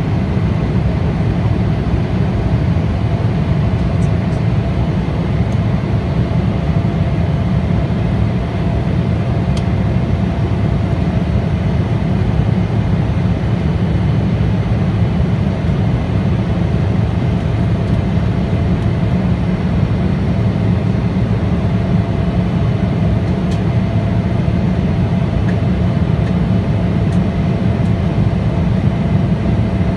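Steady cabin noise of an Embraer ERJ-175LR in the climb after takeoff: a deep, even roar from its wing-mounted GE CF34-8E turbofans and the airflow, heard from a window seat over the wing, with a faint steady hum tone above it.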